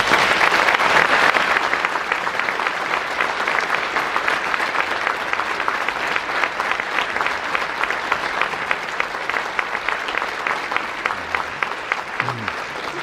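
A full concert hall's audience applauding, loudest at the start and easing off a little toward the end.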